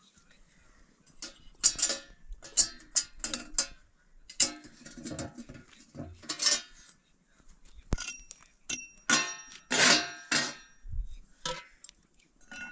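Metal cookware and dishes clinking and clattering as they are handled, a string of sharp knocks with some ringing, a few ringing on briefly.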